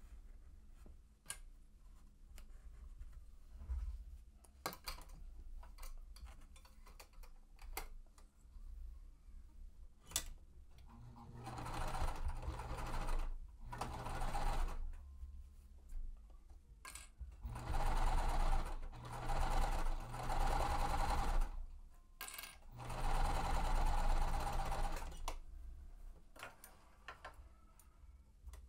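Sewing machine stitching a quilt-block seam in four runs of a few seconds each, stopping and starting between them, from about halfway in. Before that, light clicks of fabric clips and the pieces being handled.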